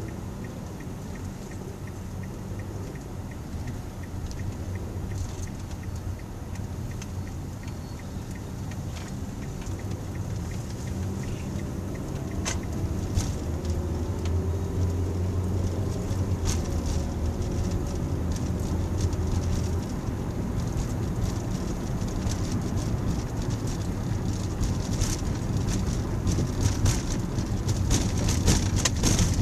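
Car engine and road noise heard from inside the cabin, a steady low hum that grows louder as the car pulls away and gathers speed.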